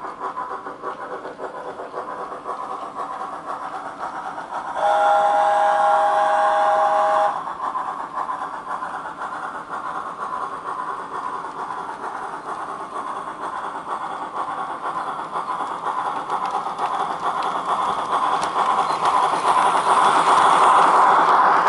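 Recorded C12 steam locomotive sounds from a model-train sound box, played through a small speaker riding in an HO-gauge boxcar. The running sound is steady, and a two-tone steam whistle blows for about two and a half seconds around five seconds in. The running sound grows louder near the end.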